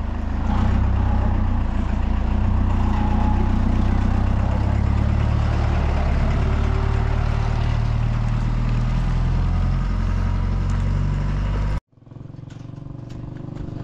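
Pickup truck engine idling close by, a loud steady low drone with no revving; it cuts off suddenly near the end.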